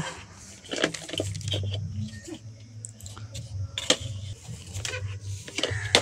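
Scattered light clicks and rattles from wires and circuit boards being handled on a workbench, over a low steady hum.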